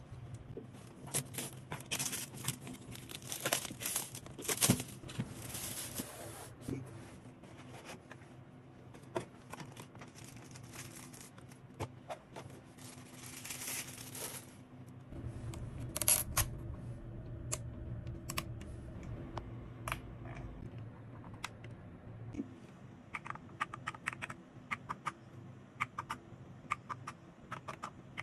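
Handling noises: several loud rustling, tearing-like bursts and scattered clicks. In the last few seconds come quick, clattering keystrokes on the Lofree 1% mechanical keyboard.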